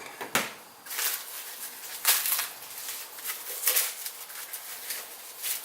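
Packaging being handled as parts are unpacked: irregular rustling, crinkling and scraping, strongest about two seconds in and again near four seconds.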